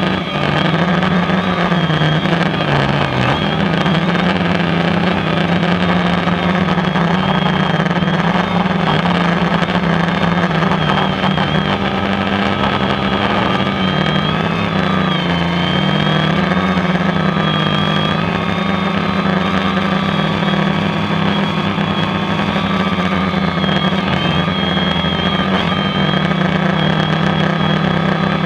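DJI Phantom quadcopter's motors and propellers whirring steadily in flight, heard close up from the GoPro mounted on its frame. The hum shifts up and down a little in pitch as the motors adjust speed to steer and hold position.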